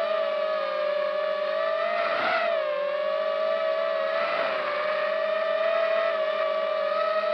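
Multirotor drone's motors and propellers whining steadily, heard up close from the drone itself. The pitch wavers briefly twice, about two and four seconds in, as the throttle shifts.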